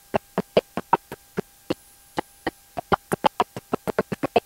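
A woman's lecturing voice broken up by a recording glitch into rapid stuttering fragments, about seven short clicks of voice a second, over a faint steady electrical hum.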